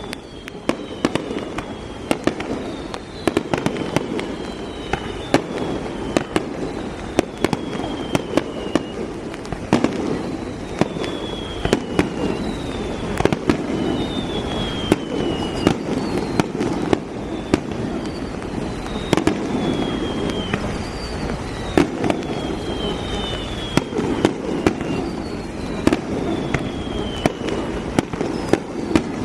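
Fireworks display: a continuous run of sharp bangs from aerial shells bursting, sometimes several in quick succession, with short falling whistles sounding between them.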